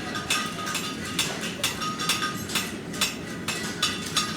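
Several farriers' hammers striking hot horseshoe steel on anvils: irregular, overlapping metallic clangs, several a second, each with a short ring. A steady low rush runs under them, the sound of the gas forges burning.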